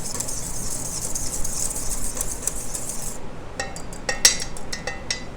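A whisk stirring a thick creamy dressing in a bowl, a steady swishing that gives way to a run of sharp clinks of the whisk against the bowl's side about three and a half seconds in.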